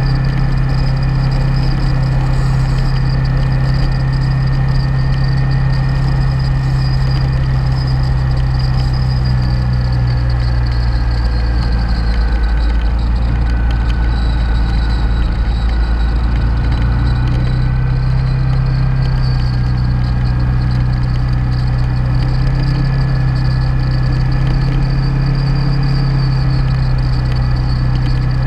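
Motorcycle engine running steadily at highway cruising speed, with wind noise over it; a little under halfway through the engine note sags slightly, then comes back up.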